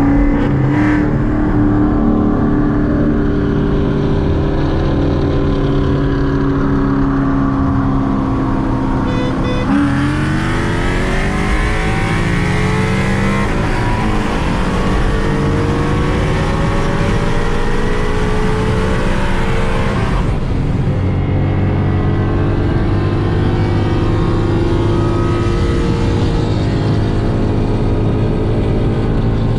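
Ford Mustang GT's V8 engine running steadily at cruise, then going to full throttle about ten seconds in, its pitch climbing through several gear changes for about ten seconds in a street-race pull. Near twenty seconds it lifts off and settles back to steady running.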